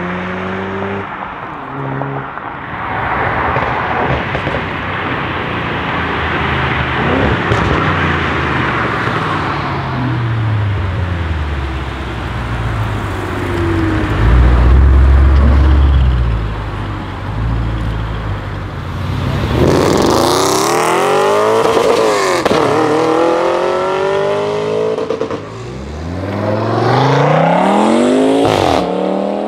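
Performance car exhausts: a car accelerating away, then an Audi RS6 with a Milltek exhaust giving a deep loud rumble, revving in several blips that rise and fall, and pulling away near the end with its note rising.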